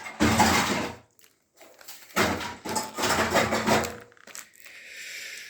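Plastic biscuit packaging crinkling and rustling as it is pulled and twisted to get it open, in two bursts, the second one longer.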